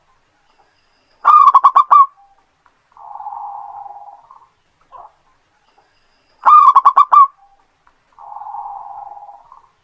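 Zebra dove (perkutut) singing: a loud, quick run of about six cooing notes, twice, each followed by a softer, drawn-out buzzy coo and a short single note.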